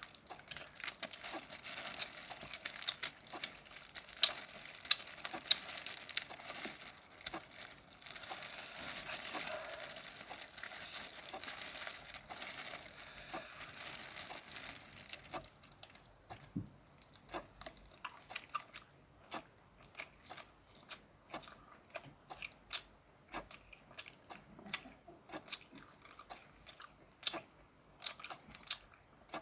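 Steamed shrimp being peeled and eaten: dense crinkling and crackling of shells for about the first half, then chewing with scattered sharp, wet mouth clicks.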